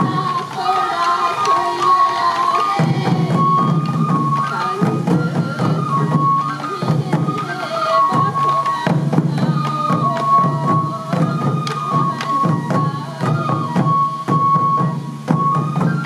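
Traditional sansa odori music: taiko drums beating a steady rhythm while a Japanese bamboo fue flute plays a high stepping melody.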